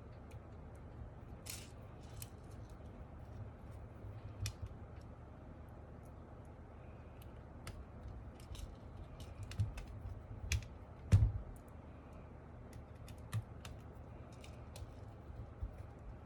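Scattered, irregular sharp plastic clicks and taps from a mechanical keyboard being reassembled and switches being fitted, with one louder knock about eleven seconds in.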